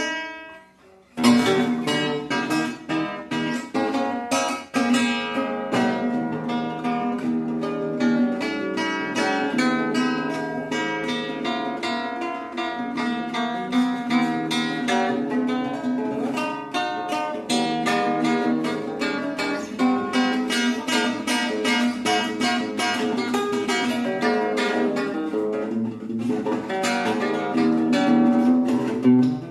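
Acoustic guitar music, plucked and strummed, with a brief pause about a second in.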